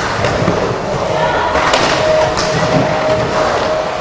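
Skateboard wheels rolling and grinding across a bowl's surface as the rider carves, with a few sharp knocks of the board and trucks, over background voices.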